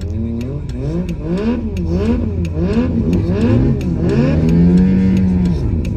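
Sport motorcycle engine revved hard during a burnout, its revs swinging up and down about twice a second, then held high for about a second before dropping near the end.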